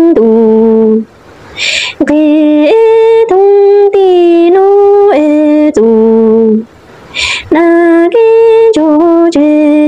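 A woman singing a Hmong orphan's lament (lug txaj ntsuag), unaccompanied, holding long wavering notes and stepping between pitches. She pauses twice to draw breath, about a second in and again near seven seconds.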